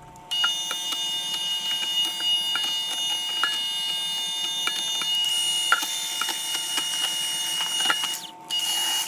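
Electric hand mixer running with a steady high whine, its beaters whipping hot gelatin mixture in a plastic tub to break up the gelatin chunks, with frequent small ticks. It switches off just after eight seconds and runs again briefly near the end.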